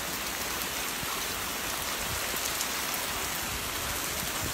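Heavy rain falling steadily: a dense, even hiss with a few sharper drop ticks now and then.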